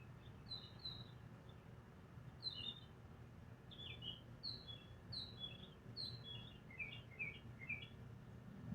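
Small bird chirping: a run of short, high, falling chirps, some in quick pairs, with the later ones pitched lower. They are faint over a low steady hum.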